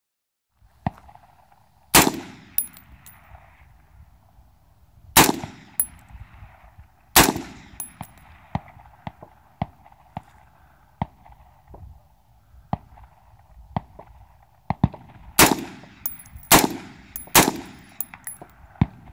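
Aero Precision 11.5-inch short-barrelled AR rifle fired in single shots, six loud reports at uneven spacing, three in the first half and three close together near the end, each trailing a short echo. Fainter sharp clicks and clinks fall between the shots.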